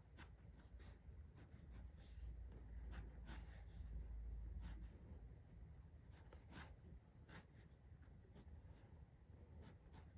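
Faint scratching of a pencil sketching short, light strokes on paper, with a faint low rumble in the middle.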